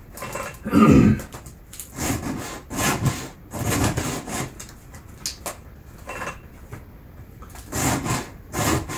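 A file rasping across the cutter teeth of a chainsaw chain: hand-sharpening strokes at an uneven pace, about a dozen of them, the loudest about a second in.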